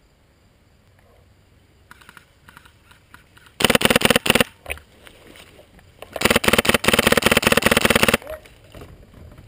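Polarstar-powered airsoft M4 firing two full-auto bursts, very loud: a short one about three and a half seconds in and a longer one of about two seconds starting around six seconds in. Fainter rapid clicking comes from about two seconds in.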